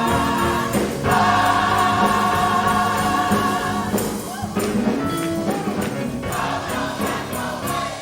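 Gospel choir singing with the church band, holding long wavering chords as the song winds down. The music thins out in the second half and drops away at the very end.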